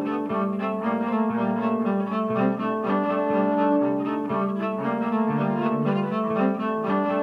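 Bowed cello playing, with several notes sounding together.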